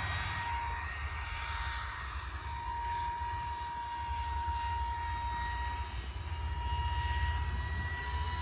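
50 mm electric ducted fan of a scratch-built RC jet running at speed: a steady high whine over a rushing hiss of air. The pitch creeps up slightly near the end.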